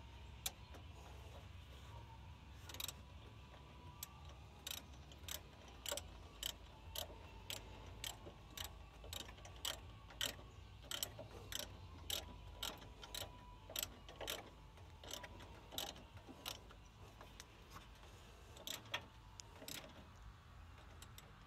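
Ratchet wrench clicking in short strokes, about two clicks a second, as it tightens the nut and bolt on a battery cable terminal.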